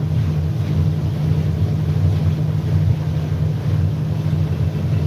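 Fast motorboat running flat out at about 44 knots: a steady, deep engine drone under the rush of wind and water.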